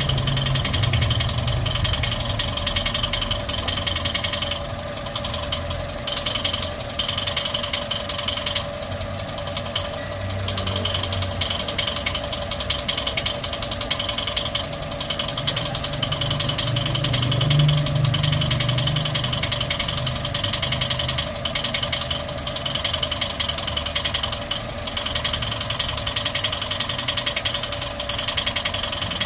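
Toyota 1NR-FE four-cylinder engine running with a noisy mechanical clatter that a new timing chain and cleaned hydraulic lifters have not cured, with a brief rise about two-thirds of the way through.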